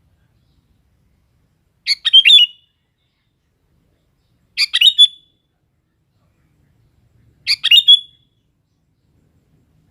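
Sooty-headed bulbul (kutilang) singing: three short, quick phrases, each under a second, a little under three seconds apart.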